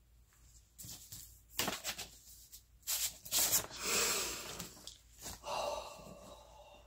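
A woman sniffling and breathing shakily while crying, the longest and loudest breath about four seconds in, with light rustling of paper as a greeting card is picked up.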